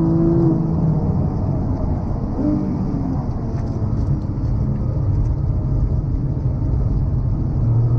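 Porsche 911 GT3's naturally aspirated flat-six, heard from inside the cabin on track. It pulls with rising pitch and cuts off about half a second in, rises briefly around two and a half seconds in, then runs as a low rumble with road noise through the corner. Near the end the revs climb again.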